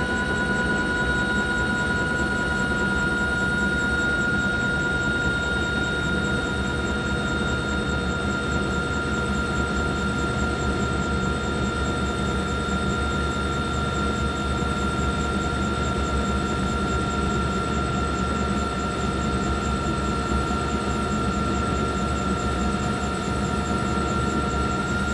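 A steady machine-like drone: several held, unwavering tones over a constant rushing noise, with a fine fast pulse high up and no change in pitch or level.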